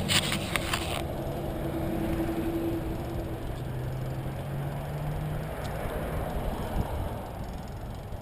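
Riding noise from a bicycle on a city street: a steady low rumble of tyres, wind and traffic, with a quick run of rattling clicks in the first second and a faint engine hum passing a little later.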